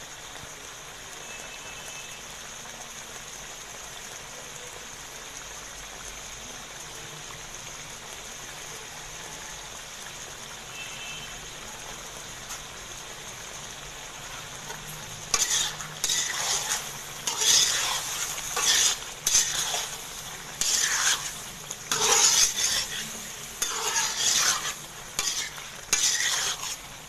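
Chicken karahi sizzling in ghee in a karahi, a steady hiss. About fifteen seconds in, a metal slotted spatula starts stirring and scraping against the pan in quick, irregular strokes, which are the loudest sounds.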